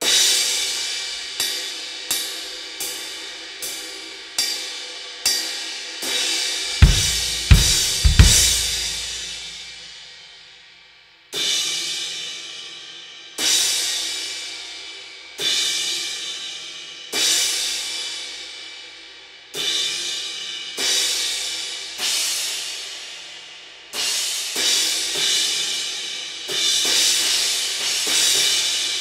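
Masterwork Iris crash cymbals, some with holes drilled where they had cracked, struck one hit at a time with drumsticks, each hit left to ring out and fade. There are quick strikes at first, a few kick drum thumps under loud crashes about seven to eight seconds in, then slower single crashes about every two seconds.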